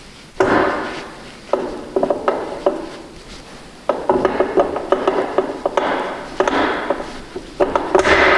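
Differential carrier and its bearing races being worked by hand into a Dana 30 axle housing: metal-on-metal clunks and scraping. A sharp clunk comes about half a second in, then bouts of rattling clicks as the races are pushed into their seats.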